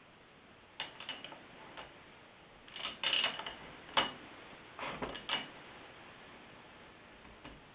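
Small metal clicks and clacks in several short clusters, from hand tools and small parts being handled on a chainsaw.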